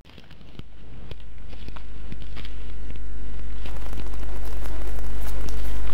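A deep low hum swelling steadily louder over a few seconds, with faint scattered clicks and crackles over it.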